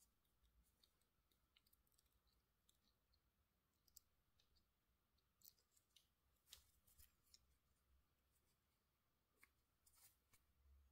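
Near silence, with faint scattered clicks and light rustles as a watch and its rubber strap and metal bracelet are handled.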